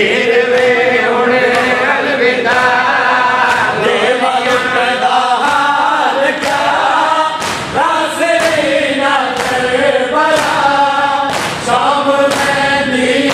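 A crowd of men chanting a noha together in unison. Their chanting is marked by a steady beat of sharp slaps from matam, hands striking chests in time, a little faster than once a second.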